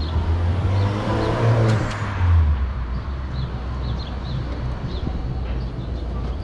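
A car passing on the street, swelling and fading away about two seconds in, over a steady low rumble of city traffic.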